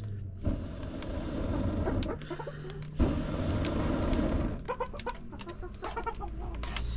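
Chickens clucking in short calls over a steady rumbling noise, with a couple of sharp knocks.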